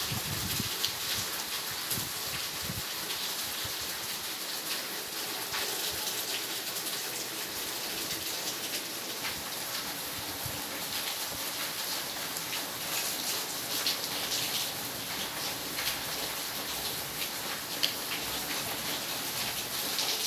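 Steady rain falling: an even hiss made of many small drop ticks, with one sharper tick near the end.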